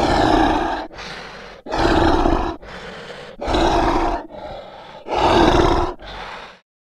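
Zombie growling sound effect: four loud growls about every second and a half, each followed by a quieter, shorter growl, cutting off suddenly near the end.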